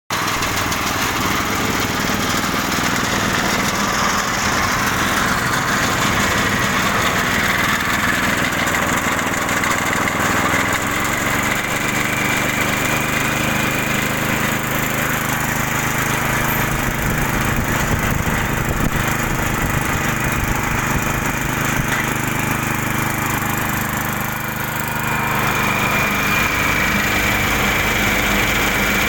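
A motor-driven 150 kg mixer machine being test-run, its drive running steadily with a high whine. The pitch shifts a little about a third of the way in, with a short dip in level near the end.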